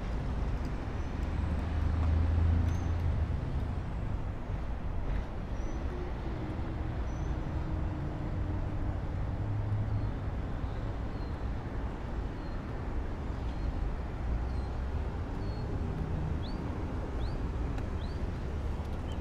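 Steady low outdoor rumble of wind and distant traffic, with a bird chirping a few short times near the end.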